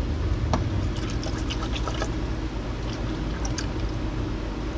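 Water running steadily from a gravity-fed reservoir through a hose into a hydroponic bucket as it fills, with a few light clicks and taps now and then.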